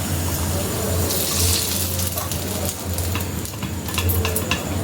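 Cashews frying in ghee in a pan: a steady sizzle with a few light clicks of a spoon against the pan, over a steady low hum.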